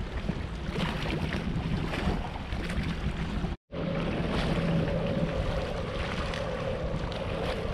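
Wind buffeting the microphone over a steady low drone, breaking off for an instant about three and a half seconds in.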